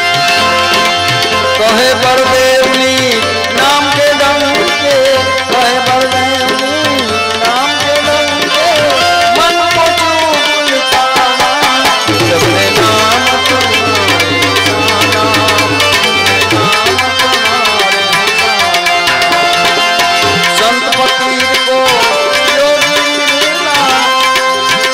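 Tabla-led Indian devotional music played live, the drums keeping a steady rhythm under a melody of held and gliding notes.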